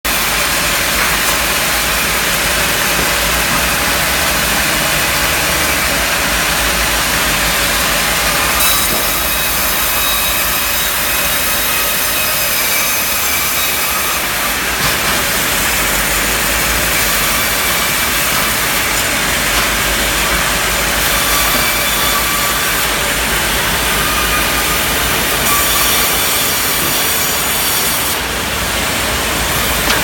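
Sawmill band saws cutting logs and slabs of wood, a loud, steady sawing noise with machinery running underneath, changing character several times.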